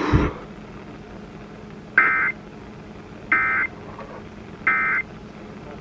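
Three short bursts of EAS/SAME digital data tones, evenly spaced about a second apart. This is the end-of-message code that closes a broadcast warning. Faint hiss and a low steady hum lie beneath.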